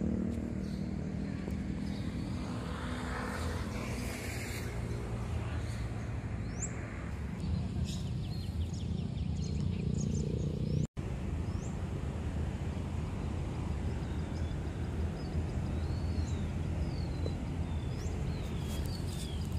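Outdoor background: a steady low rumble like distant traffic or wind, with small birds chirping now and then. The sound cuts out for an instant about eleven seconds in.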